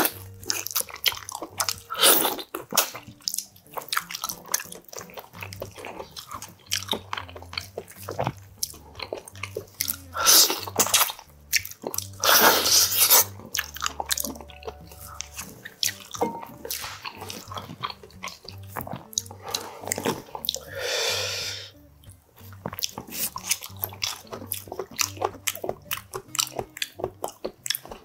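Close-miked eating of boiled beef oxtail: wet chewing and lip-smacking as meat is bitten and pulled off the bone, made of many small irregular clicks with a few louder wet bursts.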